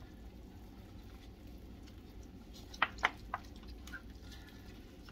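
Smoked pork butt being pulled apart by gloved hands in a foil pan: soft, wet squishing of the tender meat tearing, with three sharp clicks close together about three seconds in, under a steady low hum.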